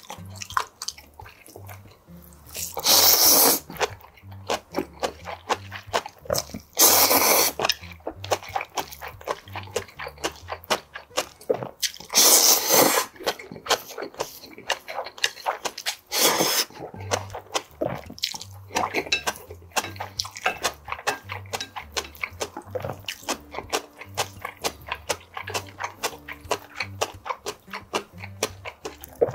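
Cold seaweed bibimmyeon noodles being slurped from a small bowl: four long, loud slurps, the last one short, with wet chewing and lip smacking between them.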